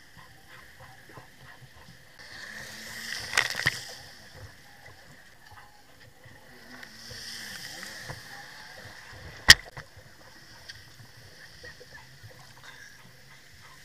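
Choppy water slapping and sloshing against a jet ski's hull, swelling twice, with a sharp knock about nine and a half seconds in.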